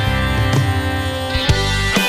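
Rock music with guitar and drum hits.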